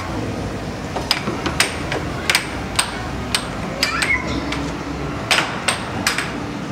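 Air hockey game on a Dynamo Fire Storm table: the plastic puck clacks sharply against the mallets and the table's rails at irregular intervals, about one to two clacks a second.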